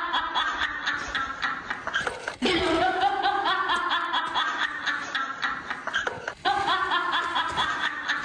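Rapid, high-pitched laughter in quick pulses, repeated in stretches with abrupt breaks about two and a half and six and a half seconds in.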